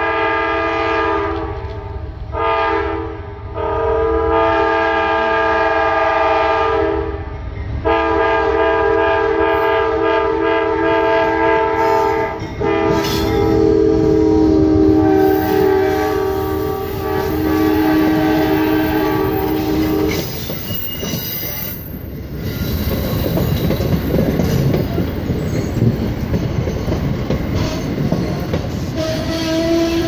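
Amtrak passenger train's locomotive air horn sounding a long sequence of blasts with a few short breaks as the train approaches. For the last third, the passenger cars pass close by, their wheels clattering over the rails.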